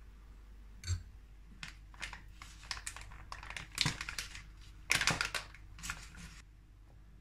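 A single knock about a second in, then a few seconds of irregular crinkling and light clicks from a cocoa packet being handled.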